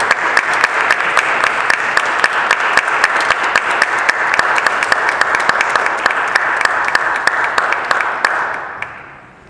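Audience applauding, with many separate hand claps standing out. The applause holds steady, then dies away over the last second or so.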